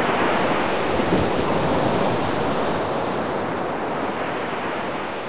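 Steady rush of ocean surf on a beach, with wind on the microphone, slowly growing quieter.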